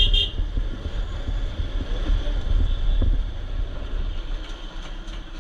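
Wind buffeting the rider's microphone over the low, steady rumble of a Bajaj Pulsar RS200's single-cylinder engine ridden at low speed. A brief double high chirp sounds right at the start.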